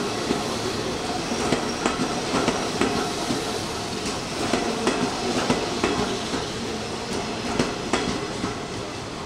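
Hanshin Railway electric train running through the station, its wheels clacking over rail joints with many sharp clicks over a steady rumble. The sound eases off slowly toward the end.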